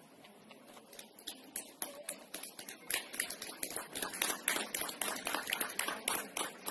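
Scattered hand clapping from a small group, irregular and sparse at first, then thicker and louder from about three seconds in.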